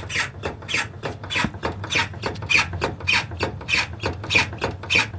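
Steering rack squeaking and rasping in quick, even strokes, about three a second, as it is worked back and forth: the noise of a faulty steering rack.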